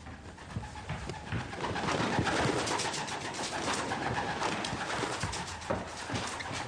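A pigeon flapping its wings in rapid, continuous flurries as it flies about inside a room. The flapping grows louder about a second and a half in.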